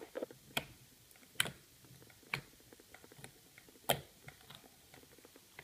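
Fingertips poking into a very wet, jiggly slime, giving several short sticky pops and clicks at irregular intervals, the loudest about four seconds in.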